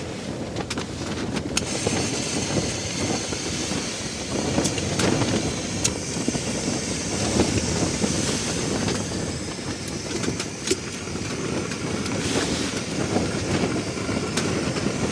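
Breakfast gear being handled: scattered clicks and rustles over a steady rushing rumble.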